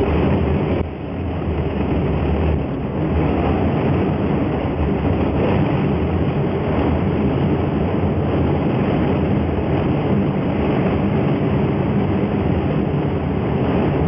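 Strong wind buffeting a ski gondola cabin: a steady, loud rushing rumble, dipping briefly about a second in.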